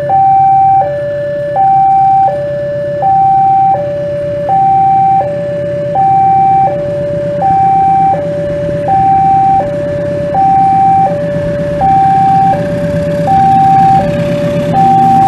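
Railway level-crossing warning alarm sounding an electronic two-tone high-low signal, one full cycle about every one and a half seconds, warning that a train is approaching. Underneath, a diesel locomotive's engine rumbles, growing louder near the end as the train draws near.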